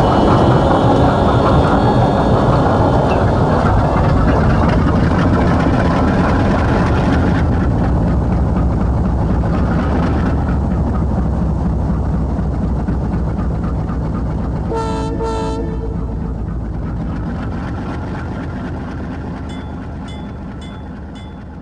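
Diesel locomotive rumbling, fading steadily away, with two short horn blasts about two-thirds of the way through. Near the end a bell rings about twice a second.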